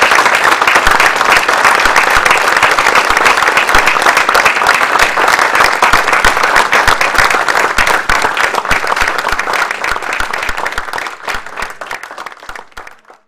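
Audience applauding: dense clapping that thins and fades from about eight seconds in, then cuts off abruptly near the end.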